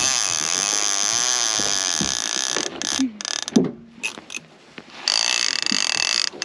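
Conventional saltwater fishing reel's clicker ratcheting in a fast, steady buzz as line runs off the spool. It lasts about three seconds, then comes again for about a second near the end, with a few knocks in between.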